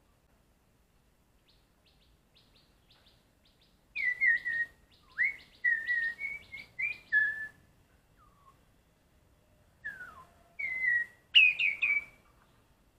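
Black-collared starling singing: loud whistled, sharply slurred phrases mixed with harsh notes, in two bouts, the first starting about four seconds in and the second, the loudest, near the end, after a few soft clicking notes.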